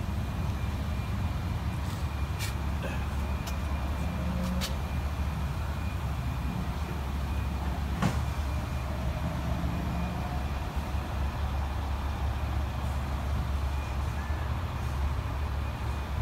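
A steady low mechanical hum with a thin steady high tone over it, broken by a few sharp clicks, the loudest about eight seconds in.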